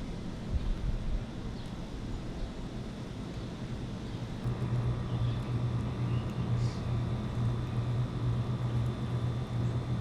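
A steady low mechanical hum, like a motor or engine running, starts about four and a half seconds in and holds steady over the outdoor background.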